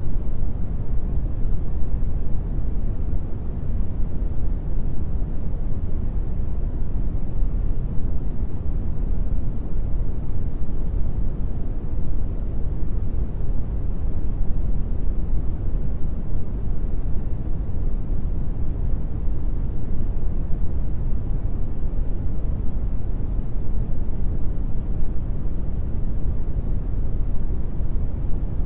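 Steady brown noise: an even, deep rumbling hiss, strongest in the bass and fading toward the treble, with no change throughout.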